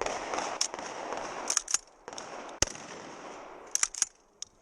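Gunshots at a shooting range: one sharp shot about two and a half seconds in, with fainter sharp cracks around it.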